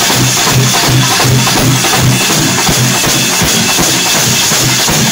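A festival drum troupe playing loudly together, a deep beat falling about two to three times a second under a dense wash of rattling high strokes.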